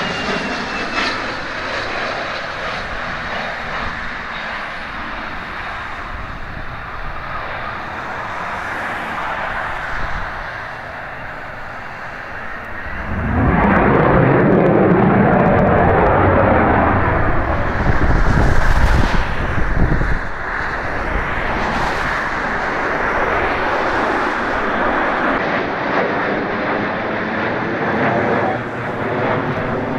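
F-16 fighter jets' engines: at first a steady jet roar with a high whine falling in pitch, then about 13 seconds in a much louder roar swells up and holds, with high whines sweeping up and down in pitch as jets pass, before settling into a steady roar.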